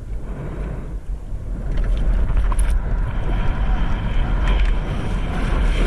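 Wind buffeting and rushing water on a GoPro's microphone during a pump-foiling run: a loud, steady low rumble with hiss over it, growing louder about two seconds in.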